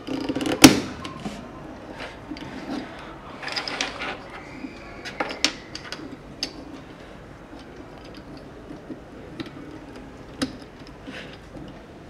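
Plastic Rubik's Cube pieces clicking and snapping as edge pieces are pressed into place on the cube's core, a sharp snap about a second in and scattered clicks after.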